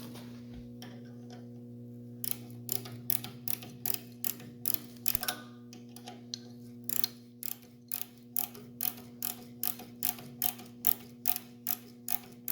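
Regular sharp clicking, about two to three clicks a second starting about two seconds in, as a 1/4-20 tap is turned slowly by hand with a nut driver to thread a brass bar. A steady electrical hum runs underneath.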